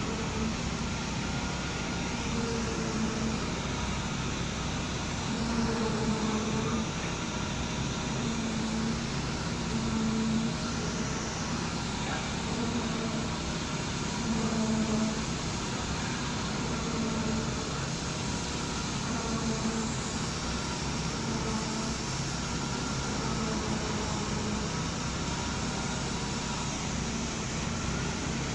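Construction machinery running steadily during a concrete pour, with a low pitched hum that swells and fades about every one to two seconds.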